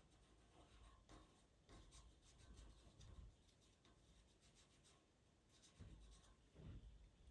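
Faint scratching of a pastel pencil on Pastelmat paper, a run of short repeated strokes laying in soft fur-like texture, with a few soft low bumps near the end.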